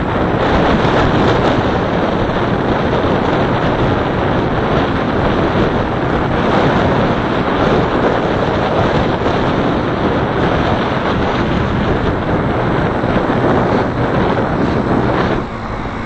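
Steady rush of wind buffeting the microphone of a camera riding along a street, mixed with road noise. It drops away briefly near the end.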